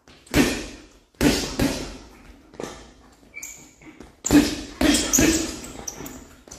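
Boxing gloves landing lead straight punches on a hanging heavy bag: about seven sharp thuds in irregular ones and twos, each ringing on in the hall. A short squeak comes between the punches about halfway through.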